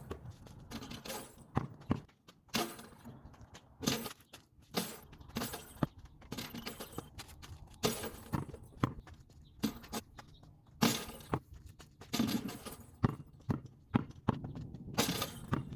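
A basketball bouncing on a hard court again and again, while shots that go through the hoop's metal chain net make it jangle and clink.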